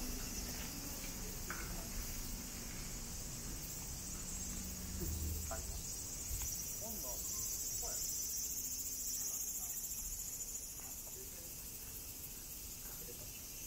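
A steady, high-pitched chorus of insects droning without a break. Faint voices come through in the middle.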